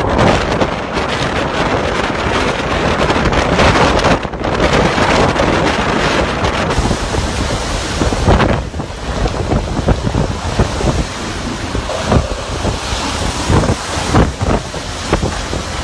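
Storm wind blowing hard and buffeting the microphone, a dense rushing roar. After about eight seconds it eases slightly and is broken by many short knocks and rattles.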